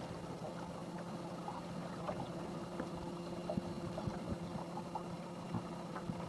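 A boat motor running steadily at low speed, a constant low hum, with scattered small clicks and knocks.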